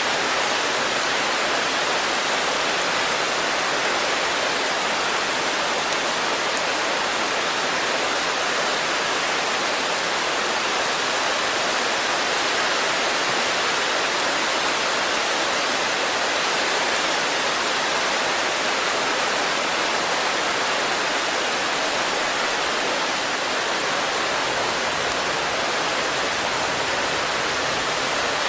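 Steady rain, an even, unbroken hiss with no separate drops standing out.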